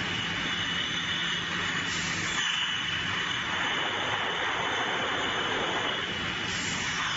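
Automatic bottle depalletizer and conveyor line running, a steady mechanical din with a thin high whine and a low hum. Two brief hisses come through, about two seconds in and again near the end.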